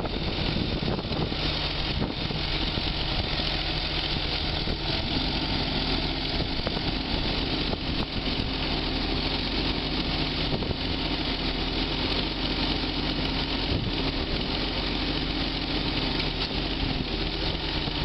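Heavy diesel machinery running steadily: a Case IH Quadtrac 535 tracked tractor mired in mud with an excavator working beside it. A steady drone joins about five seconds in and fades near the end.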